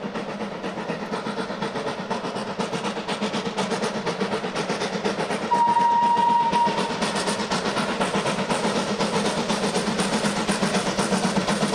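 Steam locomotive working hard, its exhaust chuffing rapidly at about four beats a second, with a single short whistle blast about halfway through.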